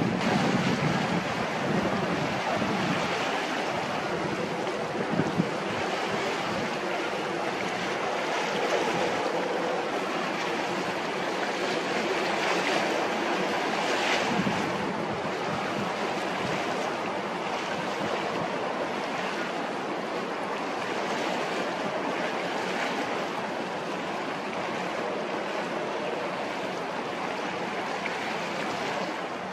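Steady harbour ambience: wind on the microphone and choppy water, an even hiss with no distinct engine tone.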